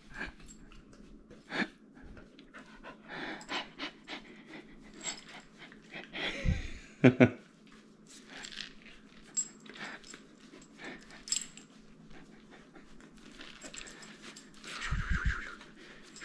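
Cardigan Welsh Corgi panting while being rubbed, with scattered clicks and a few dull thumps, the loudest about seven seconds in and again near the end.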